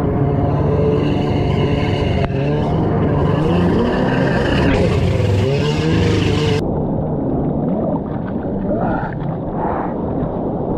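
Stand-up jet ski engine running under power, its pitch rising and falling as the throttle changes through choppy surf, with water rushing and splashing against the hull. About two-thirds of the way in the sound turns muffled and the engine gives way to churning water noise.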